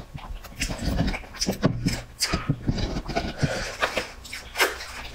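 Close-miked eating sounds: chewing, lip smacks and slurps, in many short irregular clicks and bursts.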